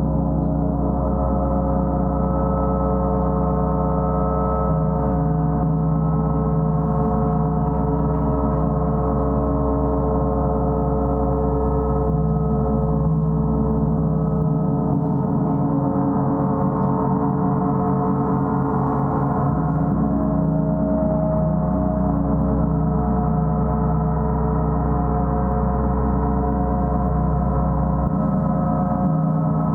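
Gong played continuously: a sustained wash of many steady, overlapping tones at an even level, with a deep hum beneath.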